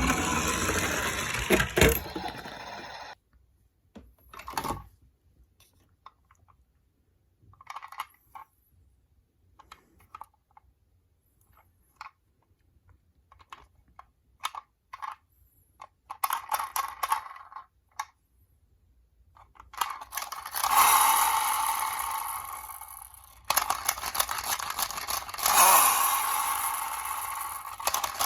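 Die-cast toy minicars clicking and clattering, with stretches of rolling noise at the start and over the last third.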